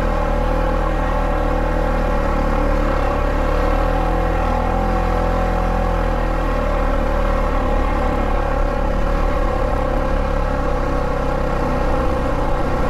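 Polaris Sportsman 570 ATV's single-cylinder engine running steadily while riding, its pitch nearly constant with no hard revving.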